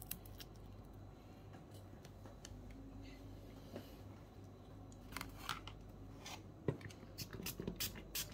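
Sparse light clicks and small taps of tools working inside an opened keyboard case while a glued-in lithium battery is being pried loose, coming more often in the second half.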